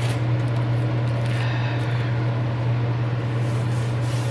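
Kitchen stove fan running with a steady low hum and rushing air.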